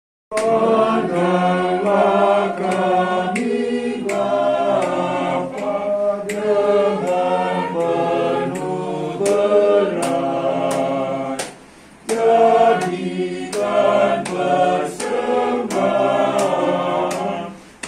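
Small amateur choir of men and women singing together from song sheets at a rehearsal, with a brief break about two-thirds of the way through.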